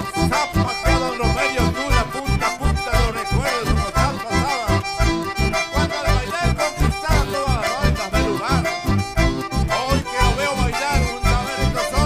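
Live band music led by button accordions playing a quick, ornamented melody over a steady bass beat of about four pulses a second, with no singing.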